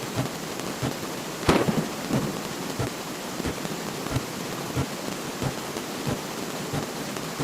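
Sound effect of a steady hiss with irregular crackles and pops, like rain, and a louder crack about a second and a half in.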